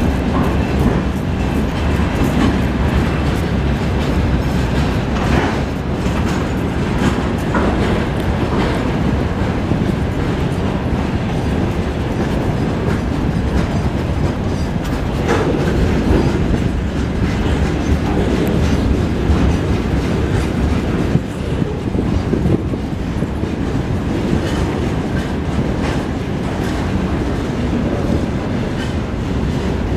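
A freight train's wagons rolling past at steady speed: a continuous noise of wheels on rail with irregular clickety-clack over the rail joints.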